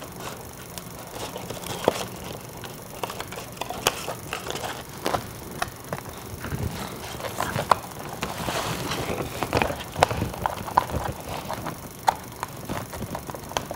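Cardboard and plastic doll packaging being handled and pulled open by hand: irregular crinkles, rustles and small clicks as the doll and its fastenings are worked free of the box backing, busiest past the middle.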